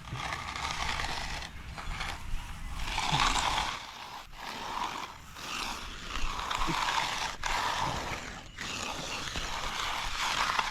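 A hand tool scraping across wet concrete in repeated long strokes, with short pauses between them.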